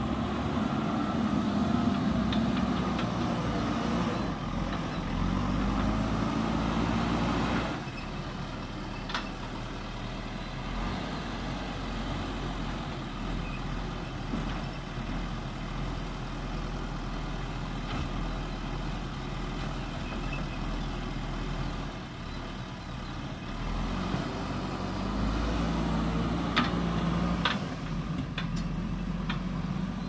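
JCB backhoe loader's diesel engine running under load while digging and loading soil, its revs rising and falling: louder for the first several seconds, lower through the middle, then up again near the end. A few sharp metallic knocks come through, once early and a couple of times near the end.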